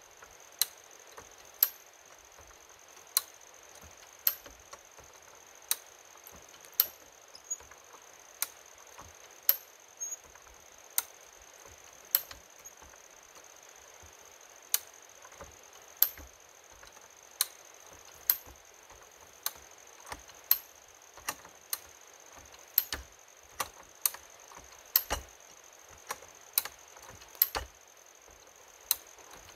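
Hi-Lift farm jack being pumped under load to lift a stump: a sharp metal clack about once a second, sometimes doubled, as the jack ratchets up its steel bar.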